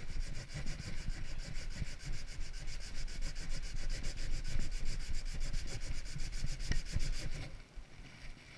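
Sandpaper rubbing briskly back and forth on a piece of wood, a rapid even scratching that stops about seven and a half seconds in.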